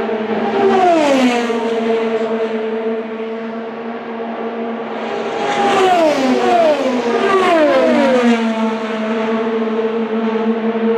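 IndyCars with 2.2-litre twin-turbo V6 engines passing at speed. One goes by about a second in, then three more follow close together about six to eight seconds in, each engine note dropping in pitch as it passes, over a steady engine drone.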